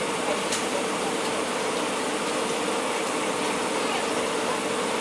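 Steady running noise of an Indian Railways passenger coach rolling slowly along a station platform, heard from inside the coach, with a constant hum and a few faint clicks.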